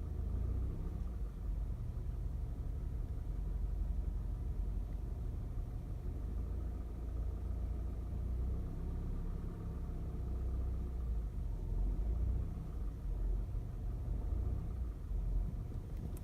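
Volkswagen 2.0 TSI (CHHB) turbocharged four-cylinder petrol engine running cold at idle, a steady low rumble with the knock that shows up when the engine is cold.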